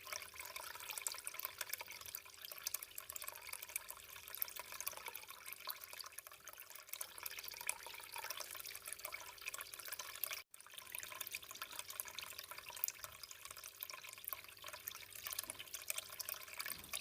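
Small homemade tabletop water fountain running: water trickling and splashing steadily into its basin. The sound cuts out briefly about ten seconds in.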